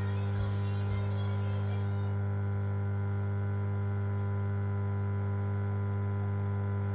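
Aquarium pump's steady, low electric hum, with a buzzing edge of higher overtones. A fainter higher sound above it stops about two seconds in.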